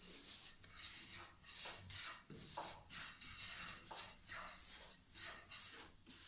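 Wooden spatula scraping and stirring gram flour and semolina in oil around a nonstick frying pan, in faint repeated strokes about two or three a second, as the mixture is roasted on medium flame until it changes colour.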